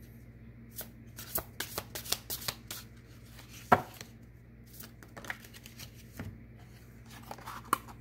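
Oracle cards being shuffled and handled: a run of light card clicks and flicks, with sharper taps a little under four seconds in and again near the end.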